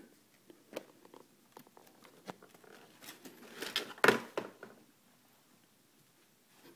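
Handling noises: scattered small clicks and rustling, with a louder rustling scrape about four seconds in, then near silence.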